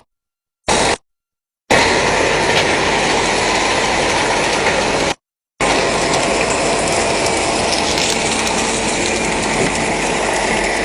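Steady, loud mechanical noise from a sand screening and washing plant running, with occasional clicks and rattles. It cuts off abruptly to dead silence several times: a brief burst about a second in, then two long stretches split by a half-second gap.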